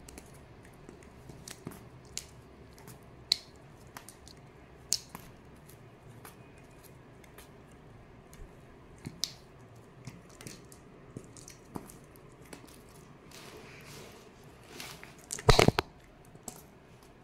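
Scattered light clicks, taps and rustles of kittens batting at a swinging toy on a woven mat, with a louder cluster of knocks about fifteen seconds in.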